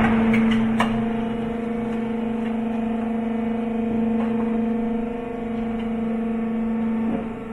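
Electric gear motor of a bitumen drum melting machine's drum lifter humming steadily as it raises a steel drum, with a short click about a second in. The hum stops about 7 seconds in.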